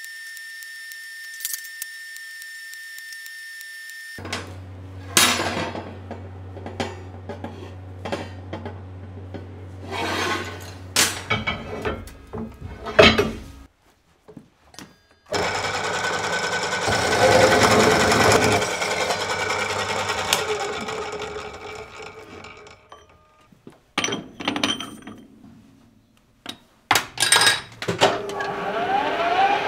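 Metal workshop machine sounds in turn: a steady high whine from a TIG welding arc for the first few seconds, then a low hum with metal clanks and knocks. Midway a metal-cutting circular saw (cold saw) grinds through steel stock for several seconds, fading as the cut finishes. Near the end come clicks and a metal lathe running.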